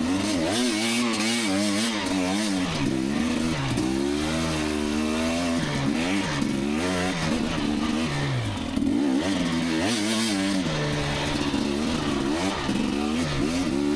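Two-stroke dirt bike engine running under a rider's throttle, its revs rising and falling over and over.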